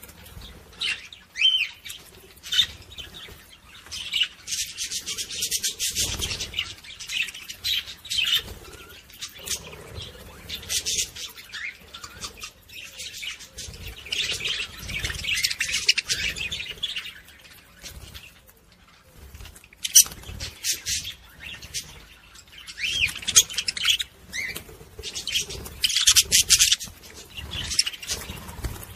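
Budgerigar warbling and chattering: rapid, high-pitched twittering in bouts of several seconds, broken by short lulls, with a few sharp clicks.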